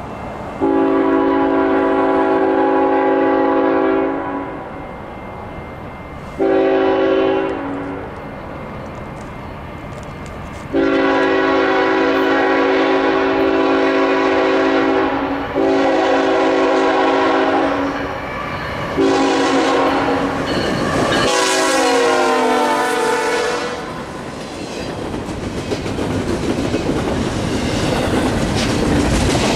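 A passing train's multi-tone locomotive air horn sounding five blasts, some long and some short. During the last blast its pitch drops as the locomotive goes by. The train's wheels then rumble and clack over the rail joints, growing louder.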